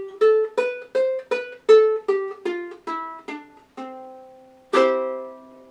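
Vintage T.V. Pal all-plastic ukulele played note by note: a C major scale plucked up to the high C and back down, ending on a held low note. Near the end a strummed chord rings on.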